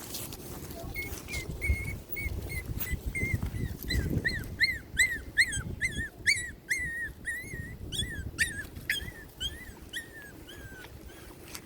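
Pomeranian puppy whimpering: a long run of short, high-pitched squeaky cries, about two or three a second, thinning out near the end, over some low rustling.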